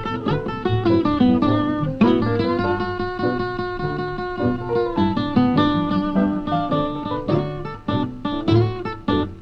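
Instrumental blues guitar on an old 78 recording: quick picked single notes, a chord held for about three seconds starting about two seconds in, then more runs of short notes.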